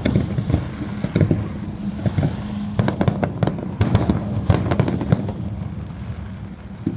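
Fireworks bursting in a rapid, irregular string of sharp bangs and crackles, over a steady low hum.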